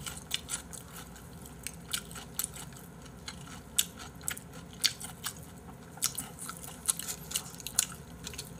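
A person chewing and biting nurungji roast chicken close to the microphone, with sharp, irregular crunching clicks several times a second.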